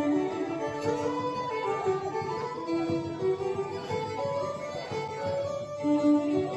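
Instrumental music, led by a plucked guitar playing a running melody.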